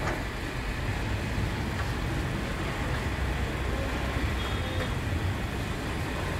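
Steady low rumble and hum of bakery machinery running on the production floor.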